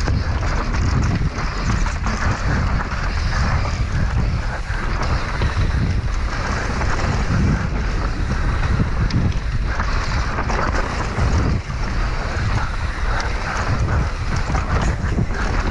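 Wind buffeting the GoPro's microphone at speed, over the continuous rumble of a downhill mountain bike's tyres on a dirt trail and the irregular rattling of the bike over roots and bumps.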